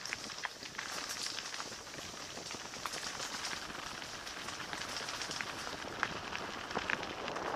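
Mountain bike rolling along a gravel and dirt track: a steady crunch of tyres on grit, dotted with small clicks and rattles.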